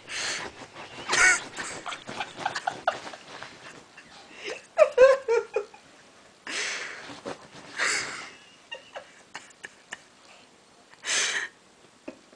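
Shih Tzu digging and pawing at a bed comforter: fabric rustling and scattered small scratches, with several short breathy huffs and a brief pitched vocal sound about five seconds in.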